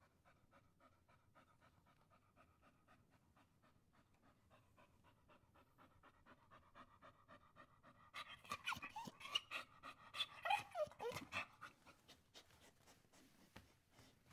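A dog panting in quick, even breaths, faint at first and growing much louder about halfway through, with a few short falling whiny notes near the loudest part.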